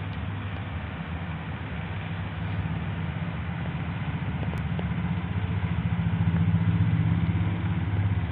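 Domestic cat purring close to the microphone: a steady, low, rapidly pulsing rumble that swells a little near the end.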